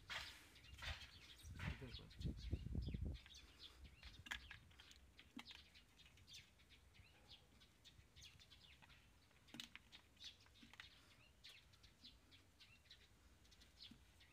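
Faint chirps of small birds, short and scattered, with a brief low rumble about two seconds in.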